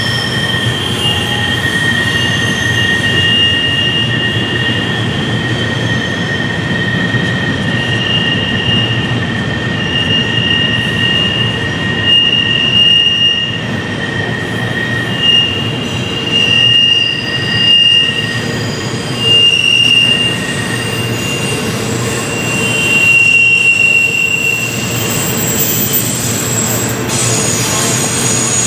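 Double-stack container train rolling past on a sharp curve, with the low rumble of the cars under high, steady wheel squeal that comes and goes in several tones: steel wheel flanges grinding against the rail through the curve.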